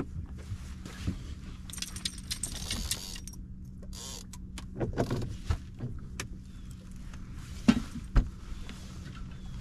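Metallic rattling, clicks and knocks of fishing rods and gear being handled in a fishing boat, over a steady low hum. There is a dense stretch of rattling about two seconds in and two loud knocks near the end.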